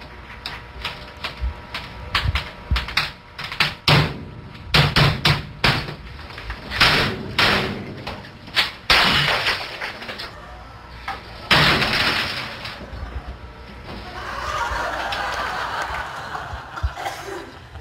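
Rapid clattering and knocking of a computer keyboard being typed on and banged, then loud crashes and breaking as the desktop computer's keyboard and monitor are smashed, played through a conference room's speakers.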